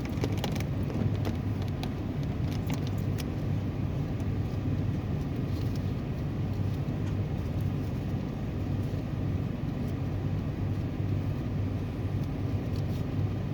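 A motor vehicle engine idling steadily, with a few light clicks and rattles, mostly in the first few seconds.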